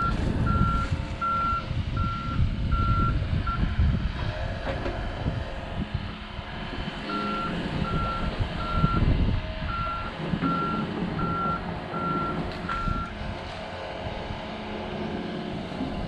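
Excavator's travel/backup alarm beeping, one steady beep about every three-quarters of a second, in two runs: for the first few seconds, then again from about seven to thirteen seconds in. Underneath runs a low rumble.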